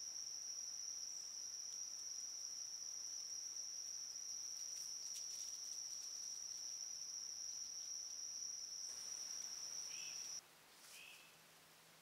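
A cricket trilling: one steady, unbroken high note that cuts off suddenly near the end. Two short, faint chirps come just before and after the cutoff.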